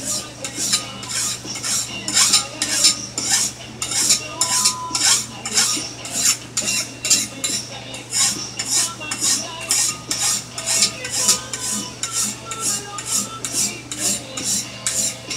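Hand file rasping back and forth along a steel knife blade clamped in a bench vise, a steady rhythm of about two to three strokes a second. It is taking the edge down before heat treatment.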